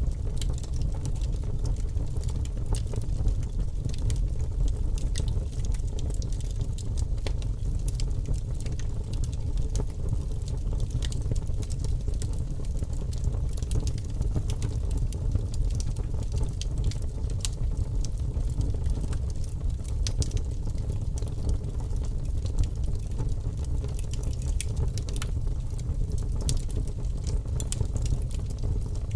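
A steady low rumble with faint, scattered light crackles and ticks over it.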